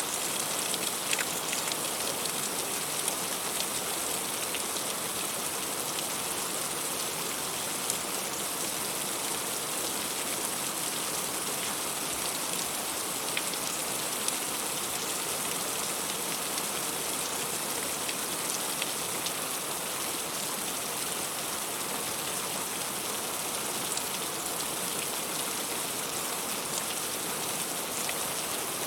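Heavy rain falling steadily: a dense, even hiss with scattered sharper drop taps.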